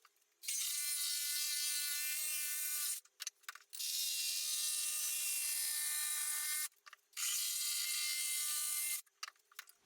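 Electric jigsaw running in three bursts of a few seconds each, cutting the curved arc along a timber strut, with short pauses and small clicks between the bursts.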